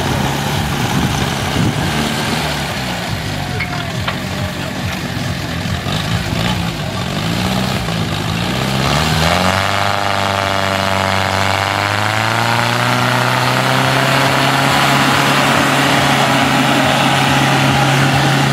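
Small tractor engines running, two at different speeds; about nine seconds in one engine revs up and then runs at a high steady speed.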